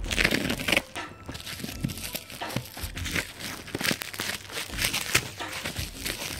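Plastic packaging and bubble wrap being crinkled and pulled at by hand, in irregular crackling rustles.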